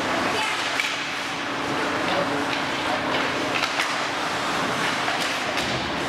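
Ice hockey rink ambience: skate blades scraping the ice and scattered sharp clacks of sticks and puck, with indistinct shouts from players over a steady hum in the arena.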